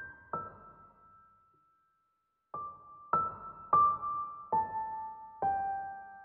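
Slow, gentle solo piano music: single notes struck one at a time and left to ring out. One note sounds, then a pause of about a second and a half, then five more notes step mostly downward.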